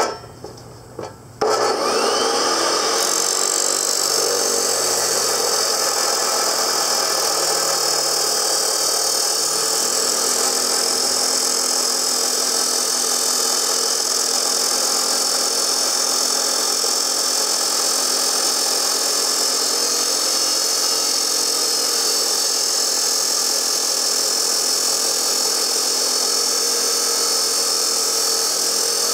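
Two short knocks, then a Dewalt D28710 14-inch abrasive chop saw starts about a second and a half in, its whine rising as the wheel spins up. The abrasive wheel then grinds steadily through 1/8-inch-wall, 3-inch square steel tubing.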